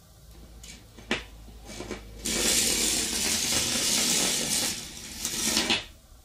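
Battery with magnet ends running through a coil of bare copper wire, a loud metallic rattling that starts about two seconds in and stops suddenly near the end. A single click comes about a second in, as the battery goes into the coil.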